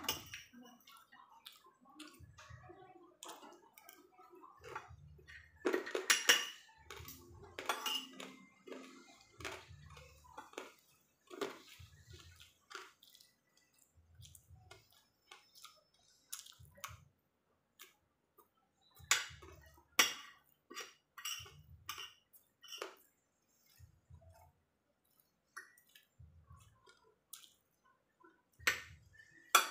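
Metal fork and spoon clinking and scraping against a ceramic plate in irregular, sharp taps while eating, with soft chewing between them.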